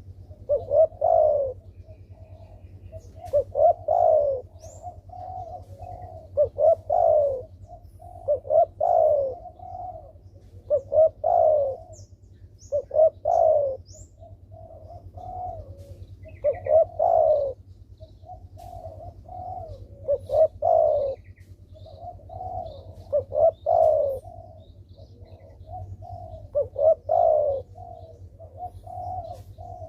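Spotted dove (derkuku) cooing over and over, a multi-note coo phrase about every two to three seconds. Faint chirps of small birds sound now and then in the background.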